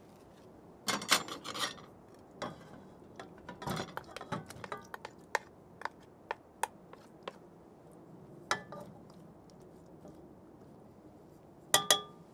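Metal camp cookware being handled: scattered light clinks, knocks and clatters of the pot and its holder. There is a run of small ticks in the middle and a ringing metal clink near the end.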